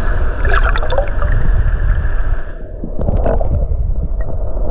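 Muffled underwater water noise picked up through a submerged camera's housing: a steady low rumble and gurgle, with a few faint clicks.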